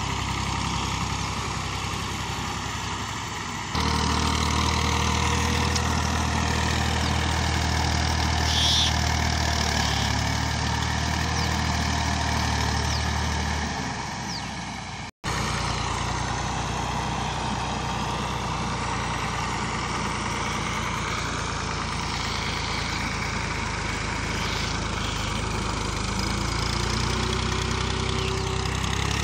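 Massey Ferguson 240 tractor's diesel engine running steadily while it drags a rear leveling blade through loose soil. The sound jumps abruptly louder about four seconds in and drops out for an instant about halfway through.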